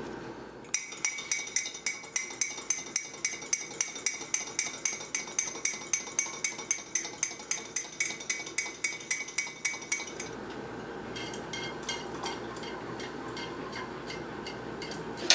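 A whisk beating in a metal mug, clinking against its sides about four times a second, as hot sugar syrup is worked into an egg yolk to temper it. About ten seconds in, the clinking turns lighter and sparser.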